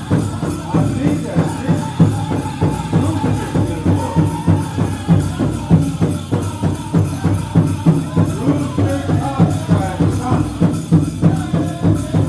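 Powwow drum group singing over a big drum beaten steadily, about two beats a second.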